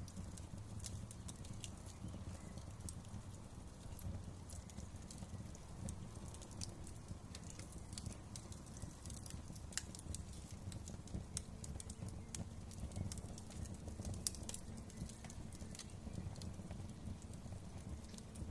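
Fireplace fire crackling, with many irregular sharp pops and snaps over a steady low rumble of the flames.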